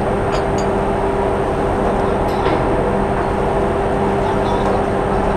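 Steady drone of a ship's machinery: a constant hum with an unchanging low tone that never rises or falls.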